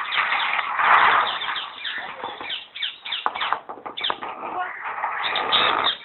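Birds calling in a dense, continuous din, with people's voices mixed in.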